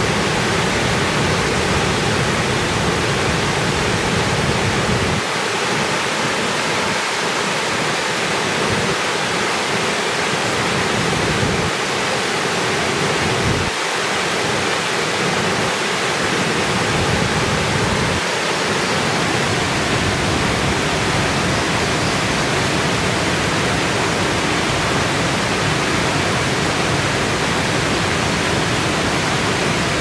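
Steady rushing of river water pouring over a low weir, an even hiss with a deep rumble underneath that thins out for a while in the middle.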